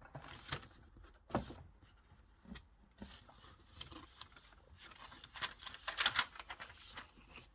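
Hands handling things on a desk: irregular rustling and light clicks, busiest about five to six seconds in.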